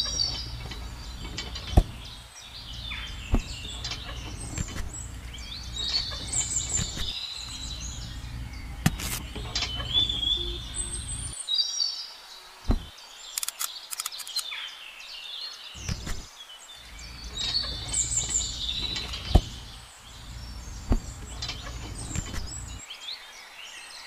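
Small clicks and taps of metal pins and plastic hitch parts being handled as a toy blade attachment is pinned to a miniature tractor's hitch, with birds chirping repeatedly and a low rumble that cuts in and out.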